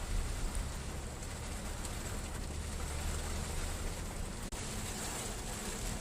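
Steady rain hiss with a low rumble underneath, from a car. The sound drops out for an instant about four and a half seconds in.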